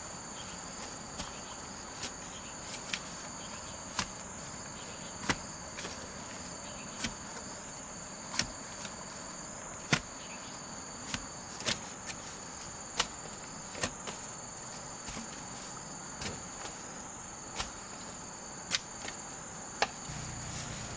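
Insects chirring in a steady, high-pitched drone, with sharp clicks or knocks coming irregularly about once a second. A low hum starts near the end.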